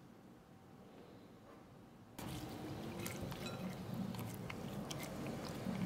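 About two seconds of near-quiet room tone, then finely diced carrot being poured from a small glass bowl into a glass mixing bowl of corned beef and potato: many quick light ticks and soft patter as the pieces land.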